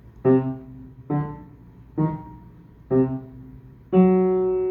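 Piano notes played by the right hand in a C minor scale with an added black note: four short notes about one a second, then a longer held note near the end.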